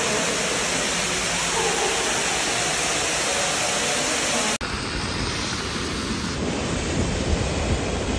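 Floodwater rushing down concrete stairs and across the pavement, a steady loud rush of water. About halfway through it cuts abruptly to a different steady noise with more low rumble.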